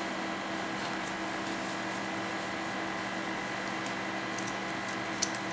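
Steady room tone: an even hiss with a faint low hum. A few light clicks near the end as the power supply's bundle of wires and plastic connectors is handled.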